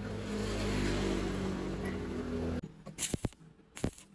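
A steady machine hum that cuts off abruptly, then a few short, sharp crackling pops from an electric welding arc briefly struck to tack a steel pin to a steel block.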